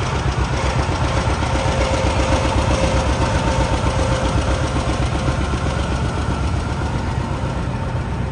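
Vehicle engine idling with a rapid, even pulse and a faint steady whine above it.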